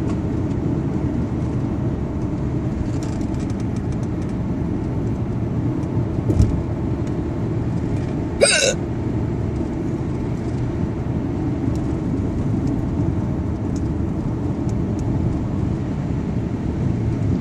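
A person hiccuping: one sharp hiccup about eight and a half seconds in, with a low thump about two seconds before it, over a steady low rumble.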